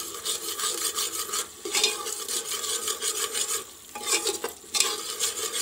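Onion-tomato spice masala sizzling in a pressure cooker while a steel spoon stirs it, scraping stroke after stroke against the pot's sides and bottom as the masala is fried.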